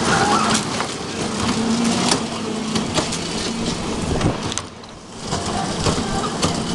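Children's track-ride cars running along a metal-plated track: a steady noisy rumble with repeated clicks and knocks and a faint hum. The noise drops away briefly about two-thirds of the way in.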